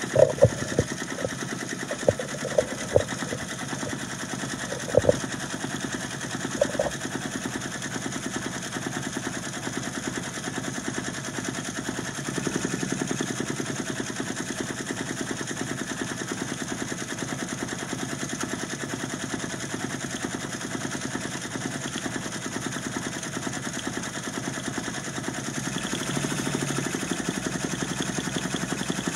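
Brother multi-needle embroidery machine stitching at speed: a steady, rapid run of needle strokes. A few sharp clicks stand out in the first several seconds, and the stitching grows a little louder about twelve seconds in and again near the end.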